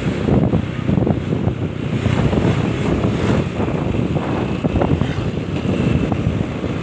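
Wind buffeting the microphone of a phone carried on a moving motorbike, a steady rumbling rush, with the ride's road and engine noise blended in underneath.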